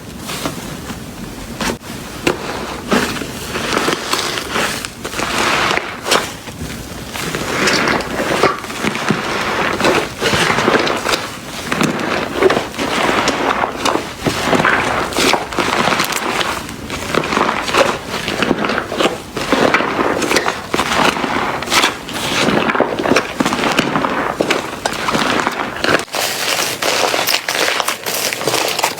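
Slime being squeezed, pressed and poked by hand, giving a dense, continuous run of crackles and small pops. The low rumble drops away about three seconds before the end as the sound shifts to a slightly thinner crackling.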